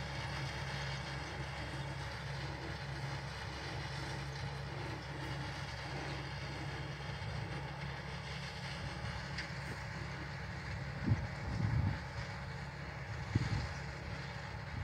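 Tractor engine running steadily as it pulls a soil-working implement across the field, growing fainter as it moves away. A few short low bumps on the microphone near the end.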